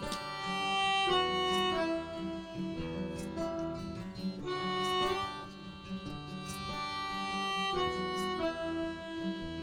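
Live acoustic band playing a song's instrumental introduction: held melody notes that change about once a second over steady strummed chords.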